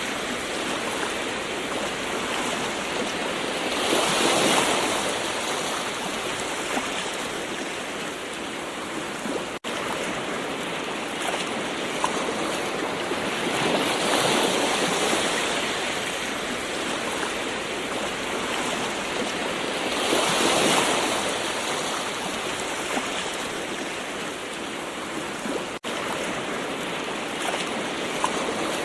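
Gentle ocean waves washing in, a steady hiss of surf that swells every several seconds. The sound drops out for an instant twice.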